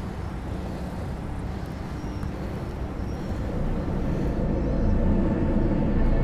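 Outdoor ambience with a steady low rumble and no clear single event. About four seconds in it grows louder as a low, held music drone swells in.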